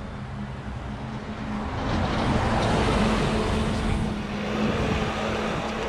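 A car passing close by: its tyre and engine noise swells to a peak two to three seconds in, then fades.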